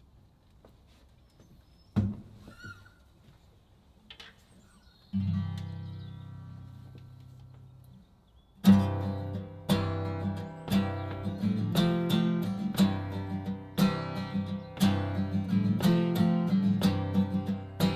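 Acoustic guitar: a single strummed chord about five seconds in rings out and slowly fades, then steady rhythmic strumming starts a few seconds later. Before the guitar there are only faint knocks and one sharp thump about two seconds in.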